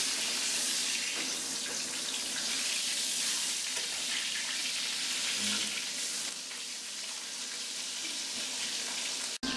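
Fish frying in a pan: a steady sizzle that cuts off suddenly near the end.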